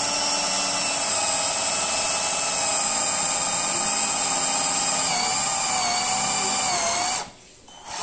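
Mustool 20V cordless drill running with a tapered hole-enlarging bit boring into hard wood: a steady motor whine whose pitch sags slightly under load past the middle, then the motor stops about seven seconds in.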